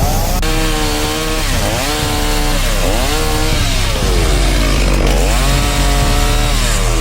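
Chainsaw cutting wood, its engine pitch dropping sharply several times as it bogs down in the cut, then climbing back to full revs.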